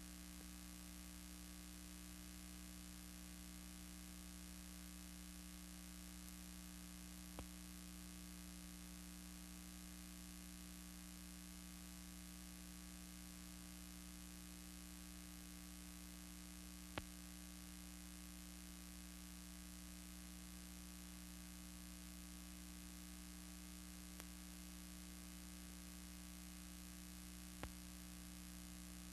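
Steady electrical mains hum with faint hiss on an otherwise silent soundtrack, broken by a few faint clicks.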